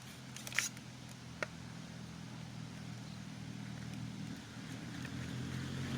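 A motor engine running steadily with a low hum that slowly grows louder, with a few light clicks in the first second and a half.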